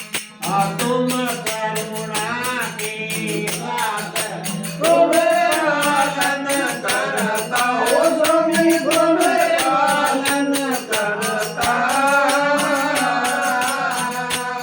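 Devotional aarti bhajan: a solo voice sings a wavering melody over a steady drone and fast, even jingling percussion. The voice comes in about half a second in and is sung louder from about five seconds in.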